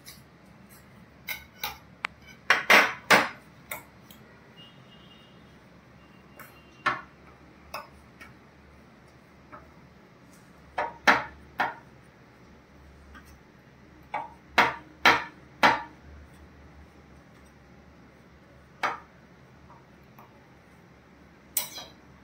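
Metal spoon clinking and scraping against a small stainless steel bowl while stirring milk powder into crushed Oreo cookies, in scattered clusters of sharp clinks with quiet stretches between.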